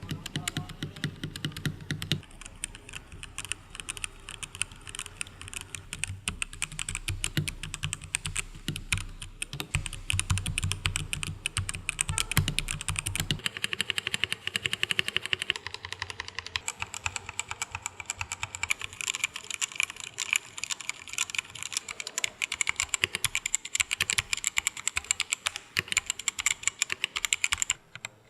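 Fast, continuous typing on budget mechanical gaming keyboards with Outemu switches, as a typing sound test. About 13 seconds in the deep low thud drops out and the keystrokes turn brighter and clackier.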